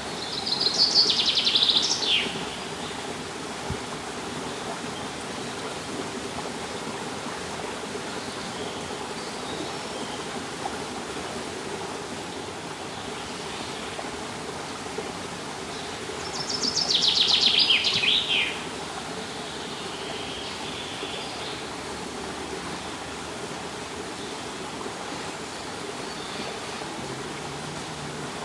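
Steady rush of flowing water, with a songbird singing twice. Each song is a quick trill of about two seconds that falls in pitch, one near the start and one about halfway through.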